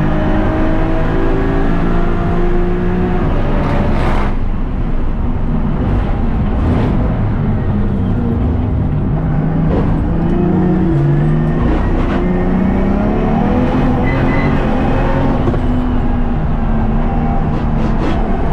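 Single-turbo BMW S55 inline-six race engine revving hard on track, its pitch rising and falling as the car accelerates and slows. A sharp crack about four seconds in.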